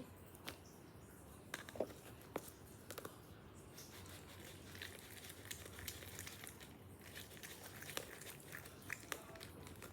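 Faint, scattered clicks and crinkling rustles of small objects being handled while making slime, at uneven spacing with no steady rhythm.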